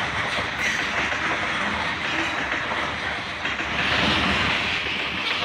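Covered hopper cars of a freight train rolling past close by, their steel wheels running over the rails in a steady rumbling noise, a little louder about four seconds in.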